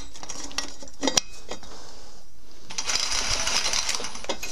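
Metal hand tools clinking a few times, then about a second and a half of rapid ratchet-wrench clicking as a fastener is cinched tighter.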